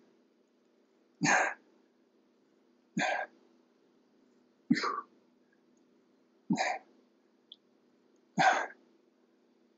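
A person breathing out sharply and forcefully, five short breaths about one every two seconds, in time with the reps of prone T raises, over a faint steady low hum.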